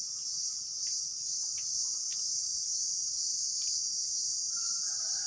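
Dense, steady high-pitched chorus of insects, an unbroken chirring with a few faint clicks.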